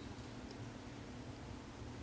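Faint room tone: a steady hiss with a low, even hum.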